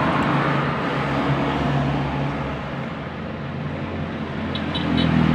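Steady rumble and low hum of a running motor-vehicle engine, swelling a little near the end, with a few faint small clicks.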